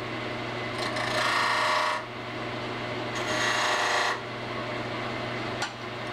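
Wood lathe running with a steady hum while a turning tool cuts into the spinning cedar blank in two passes, each about a second long.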